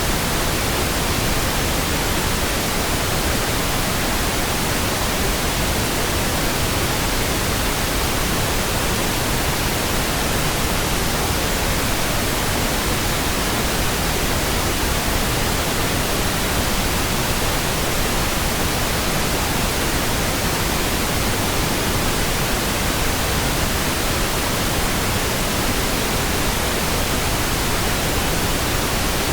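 Pink noise: a steady, even hiss across all pitches, without change or interruption.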